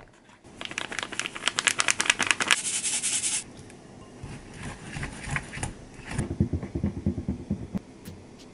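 A whisk beating rapidly in a mixing bowl for cookie dough, an even run of sharp clicks about eight or nine strokes a second for nearly three seconds. Then quieter scattered knocks, and a run of softer, duller knocks near the end.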